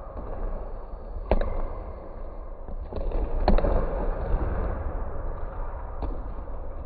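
Basketballs thudding on a hardwood gym floor and smacking into players' hands during a passing and shooting drill: a few sharp hits, the loudest about three and a half seconds in, echoing in the gym over a steady low rumble.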